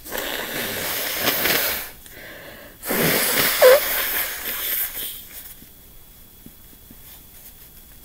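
A person blowing their nose into a tissue, two long blows. The second is louder, with a brief squeaky honk in the middle. The nose is congested from a head cold.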